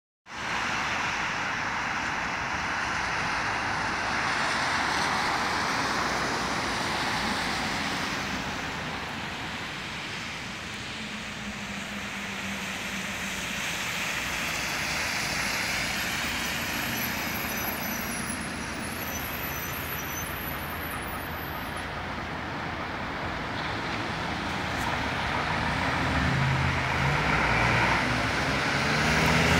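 Road traffic on wet asphalt: steady tyre hiss and spray from passing cars, with a Scania coach's diesel engine passing by; its low engine note grows louder near the end.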